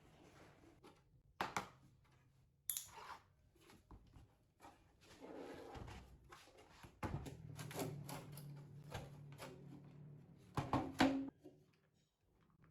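Scattered clicks, knocks and rattles of small hard objects being handled and set down, with a low hum underneath for part of the time; the loudest knocks come in a quick cluster near the end.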